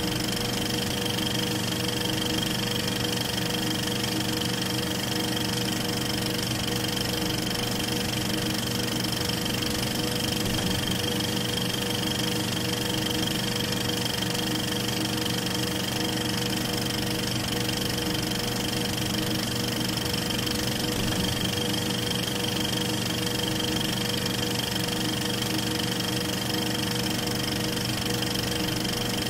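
Film projector running: a steady mechanical whir with several constant tones, unchanging throughout.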